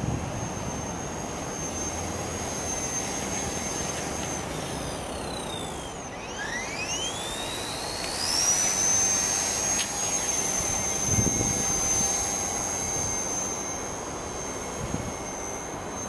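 An XK K120 micro helicopter's brushless motor and rotor whine at a steady high pitch. About four seconds in the whine slides down as the rotor slows. About six seconds in it climbs back up and then holds steady again.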